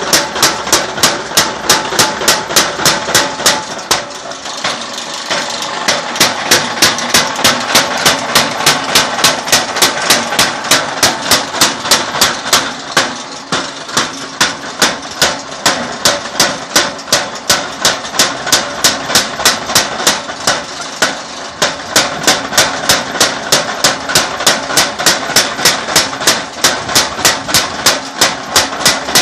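Spring-clutch mechanical power hammer pounding red-hot iron on its anvil, about three blows a second, over the steady running of the machine. The blows weaken briefly about four to six seconds in, then come back at full strength.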